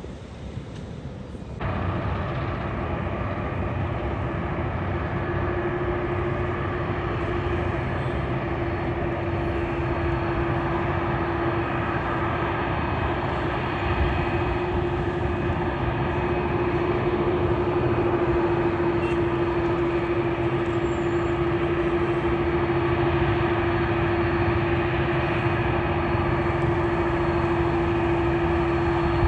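Airliner engines running steadily: a constant rushing noise with a steady hum, starting suddenly about two seconds in.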